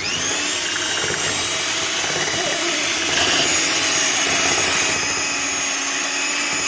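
Electric mixer spinning up and then running at a steady whine, whisking double cream with sugar and lemon juice into whipped cream.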